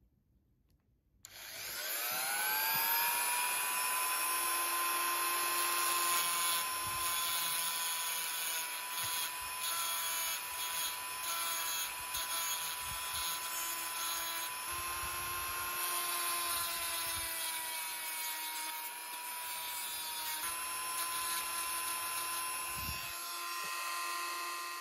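A small handheld rotary tool with a thin cut-off disc spins up about a second in, then runs with a steady high whine while cutting and grinding crab claw shell. Its pitch dips briefly now and then as the disc bites.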